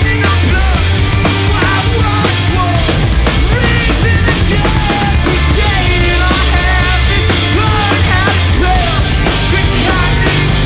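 Loud live punk rock band playing: drum kit, bass and guitars, with a melody line that bends up and down in pitch over a heavy low end.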